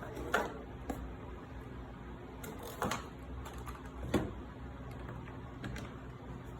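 A few scattered clicks and knocks from handling the keyboard and plugging in its USB cable, over a steady low hum.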